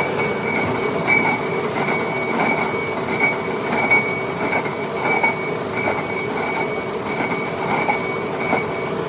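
Lathe turning a cast iron V-belt pulley, the cutting tool giving off a steady high squeal that swells and fades about twice a second with the work's rotation, over the hiss of the cut.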